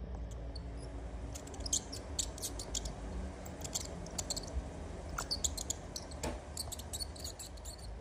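Mice squeaking: clusters of short, high-pitched squeaks in rapid runs, coming in several bouts over a steady low hum.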